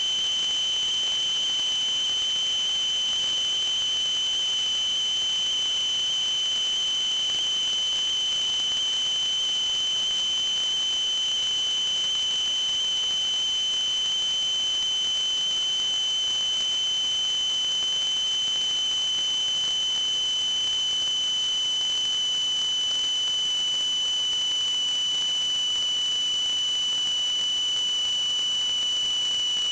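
Steady high-pitched electronic whine with fainter higher overtones over a constant hiss, unchanging throughout: electrical noise in a sewer inspection camera's audio feed.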